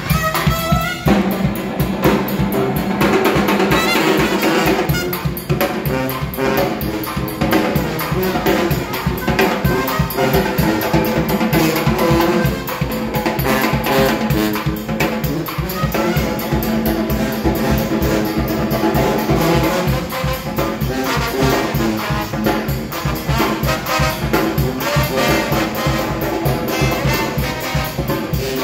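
A New Orleans-style street brass band playing: sousaphones and trombone over a bass drum and snare drum keeping a steady, driving beat.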